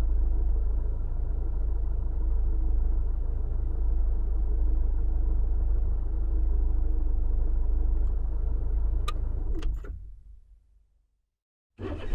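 Car engine idling steadily with a low drone. Near the end there are a few sharp clicks, then the engine sound dies away into silence. Just before the end a new loud sound starts suddenly.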